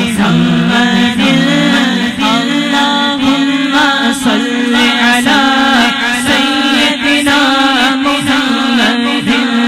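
A man singing a naat (Urdu devotional song in praise of the Prophet) into a microphone, holding long wavering melodic notes over a steady low drone.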